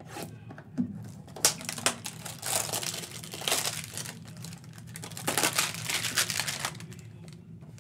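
Clear plastic wrapping crinkling and rustling in repeated spells as a trading-card hanger box is opened and its wrapped stack of cards is pulled free.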